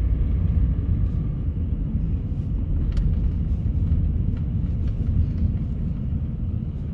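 Steady low rumble of a car driving on a snow-covered road, engine and winter tyres heard from inside the cabin, with a single sharp click about three seconds in.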